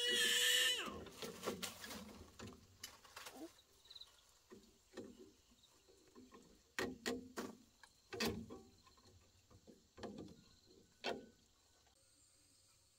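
A high-pitched cry fades out in the first second, followed by about ten irregular knocks and taps spread across the next ten seconds.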